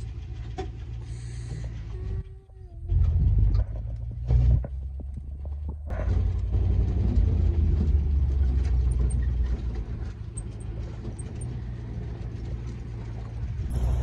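Open game-drive vehicle on the move: a low, steady rumble of engine and tyres mixed with wind buffeting the microphone, with louder jolts about three and four and a half seconds in.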